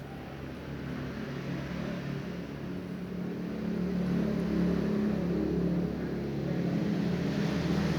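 A motor running with a steady low hum, growing louder over the first few seconds and then holding.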